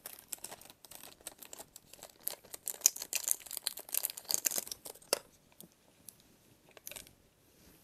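Small packaging being unwrapped by hand, crinkling and crackling in a dense run that thins out about five seconds in, followed by a few scattered clicks.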